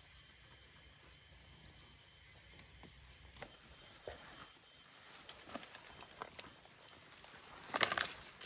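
Faint rustling of leaves and corn stalks, with scattered snaps and footfalls, as someone pushes through a corn and pumpkin patch. Near the end comes a louder, brief tearing crack as an ear of corn is pulled off its stalk.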